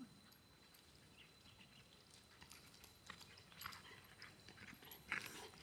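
Faint, quick footfalls of a golden retriever running across grass, growing louder near the end as it comes close.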